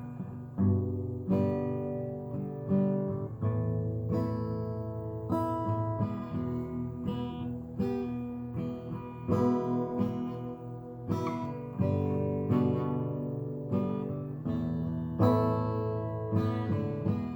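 Acoustic guitar strumming chords, each chord struck sharply and left to ring.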